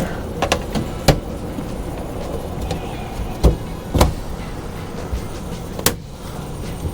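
A handful of sharp knocks and clicks as the air conditioner air handler's cover panels are fitted back on, over a steady low rumble.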